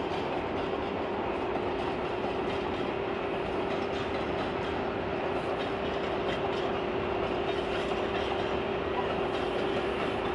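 Freight train of open wagons rolling past, a steady noise of wheels on rail with one constant tone held through it.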